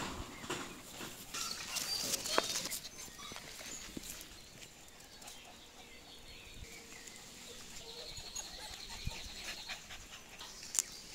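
Border Collie puppies panting and giving small whimpers, with scattered sharp clicks and knocks.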